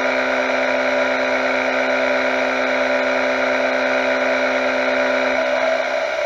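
CNC mill face-milling a metal block under flood coolant: a steady cutting whine over the hiss of coolant spray, the whine dropping out shortly before the end as the cutter passes off the cut.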